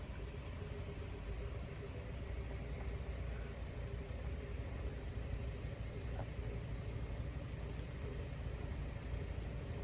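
Steady low rumble of road vehicle engines running at idle, with a faint steady hum.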